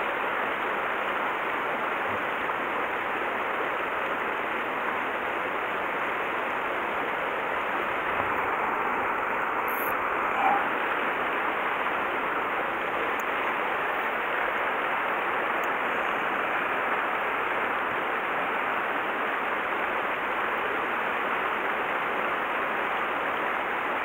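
Mountain stream flowing, a steady rush of water.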